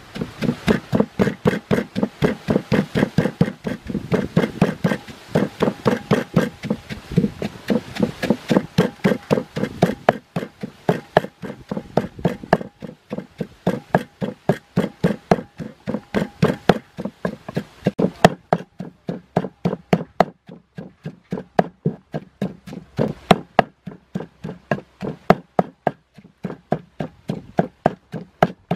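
Wooden pestle pounding garlic, chilies and salt into a wet paste in a deep wooden mortar: a steady run of dull knocks, about three a second. The strokes sound fuller for the first ten seconds or so, then thinner and sharper.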